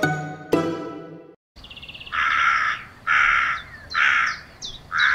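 A short plucked-string tune ends about a second and a half in. Then crows caw four times, harsh calls about a second apart.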